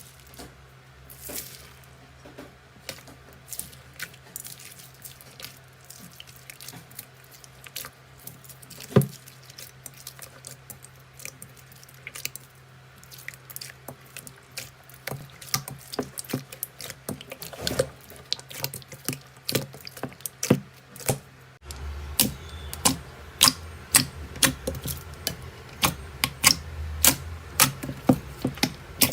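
Slime being squeezed and poked by hand, making irregular wet clicks and pops. About two-thirds of the way through it cuts to another slime, whose clicks come faster and louder.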